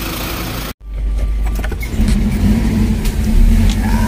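Off-road vehicle engine running. The sound cuts out abruptly for a moment under a second in, then about two seconds in grows louder and settles into a steady low hum.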